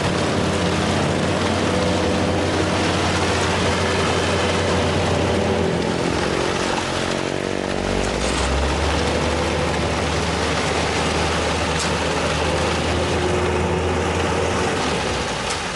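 Heavy construction vehicle's engine running steadily under load; about seven seconds in its pitch slides down and settles lower.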